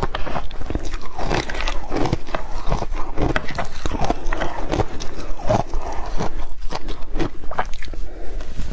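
Close-miked biting and chewing of yellow powdery ice, a dense, irregular run of crisp crunches.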